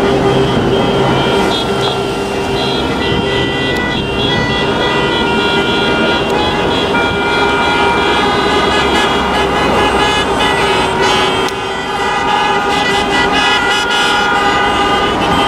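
Many car horns honking at once, overlapping at different pitches and sounding off and on throughout, over a steady hum of motorway traffic.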